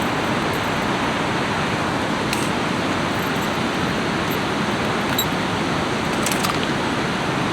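Steady rushing of river water pouring over a dam, with a couple of faint clicks about two and six seconds in.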